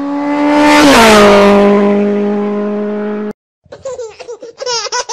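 A vehicle engine sweeping past at speed: it swells, drops in pitch as it passes about a second in, then fades and cuts off abruptly. After a brief silence, quick high-pitched laughing sounds begin near the end.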